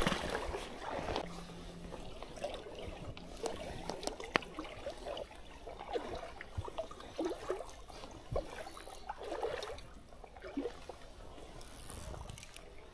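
Shallow stream water trickling and gurgling, with scattered small splashes and ticks.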